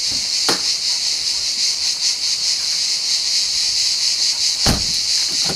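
Steady chorus of cicadas buzzing, a dense high-pitched hiss throughout, with a short click about half a second in and a low thump near the end.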